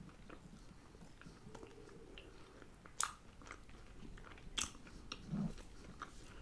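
Close-miked eating: a person biting and chewing food, with scattered small clicks and two sharp crunches about three and four and a half seconds in. A short low hum comes about five seconds in.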